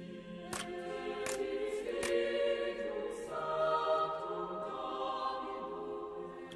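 Background music with held, choir-like vocal chords, marked by a few sharp clicks in the first half.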